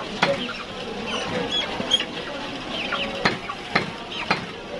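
A heavy chopping blade striking chicken on a wooden log block: about six sharp chops, roughly one a second, with high chirps between them.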